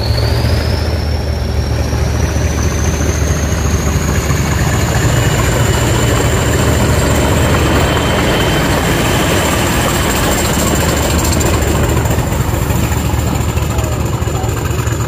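Class 40 diesel-electric locomotive D213 passing close by. Its English Electric 16-cylinder engine throbs low under the class's high turbocharger whistle, which rises in pitch over the first second or two and then holds steady.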